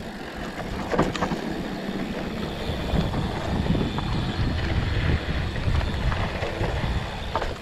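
Mountain bike rolling fast down a dry dirt singletrack: tyres crunching over dirt with chain and frame rattles and a few sharp knocks, under steady wind rumble on the microphone.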